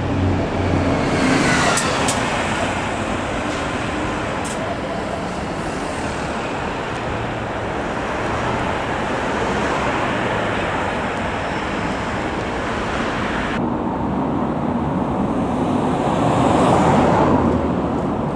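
Road traffic noise: motor vehicles running along a road with steady road noise. One vehicle passes close and grows louder about sixteen seconds in, then fades.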